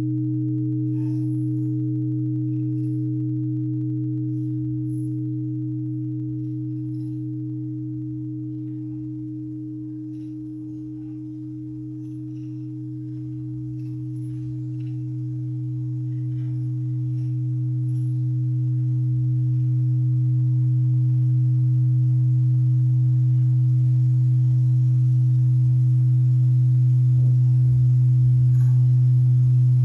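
Large Japanese hanging temple bell (bonshō) humming on after being struck: a deep steady tone with higher overtones, one of them pulsing about once a second. The hum slowly fades and then swells back again with no new strike.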